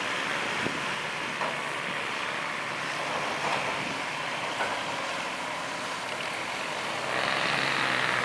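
Heavy diesel earthmoving machinery running steadily, with a few light knocks. The engine gets louder about seven seconds in.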